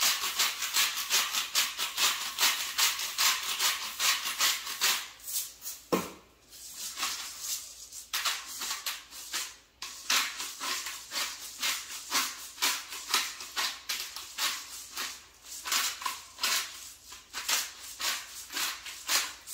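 Hand salt and pepper grinders being twisted: a rapid rasping crunch of several strokes a second, pausing briefly about a third of the way through and again about halfway.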